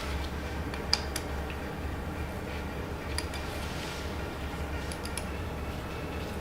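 A few light metallic clinks of small hand tools, an Allen key and tap on a cylinder head, over a steady low hum.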